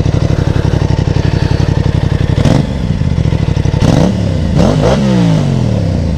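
Aprilia RS 660's 659 cc parallel-twin running through a Motobox-modified stock exhaust, warm. It idles with an even pulsing beat, then from about two and a half seconds in is revved in about four quick throttle blips, each rising and falling back.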